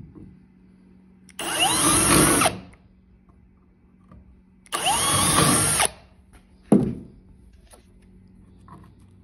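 Cordless drill with a countersink bit boring two pilot holes into a wooden framing board, each a burst of about a second with the motor whine rising and falling. A single sharp knock follows.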